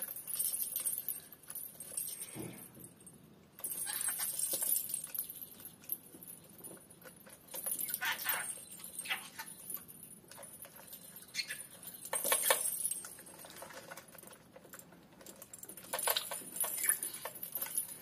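Small metal bells on a jester-style mask jingling in short bursts every few seconds, shaken as a budgerigar and a hand move about on the mask.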